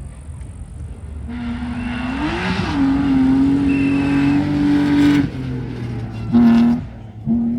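A rally car's engine at full throttle on a gravel stage, holding a high, steady note. The engine cuts off abruptly about five seconds in, gives a short, loud burst of revs about a second later, then goes back on throttle near the end.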